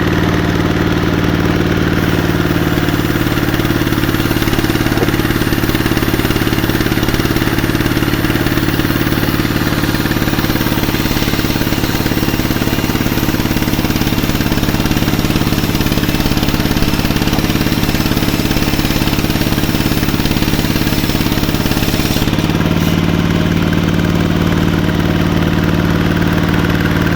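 Engine of a sawmill running steadily at one speed, with a hiss over it that stops about 22 seconds in, leaving the engine's hum stronger.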